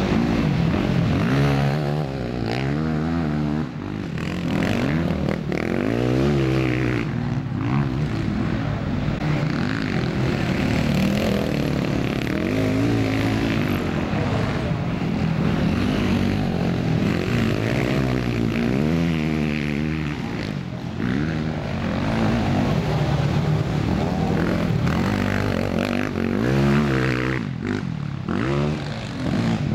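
Several motocross bikes racing, their engines revving up and dropping back again and again as the riders accelerate and shift, with more than one engine heard at once.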